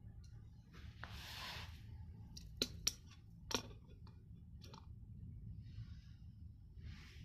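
A digital caliper being handled and set against the metal pulley flange of a water pump. A brief rustling slide about a second in is followed by three sharp clicks over the next couple of seconds, all over a low steady hum.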